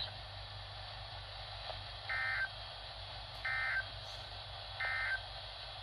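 Weather radio receiver sending the SAME digital end-of-message code after a warning: three short data bursts about a second and a half apart, over a steady low hum and hiss from the receiver.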